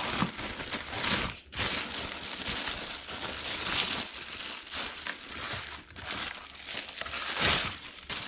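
Packaging crinkling and rustling as a boxed fan is unpacked and handled, with a brief pause about a second and a half in and a louder crackle near the end.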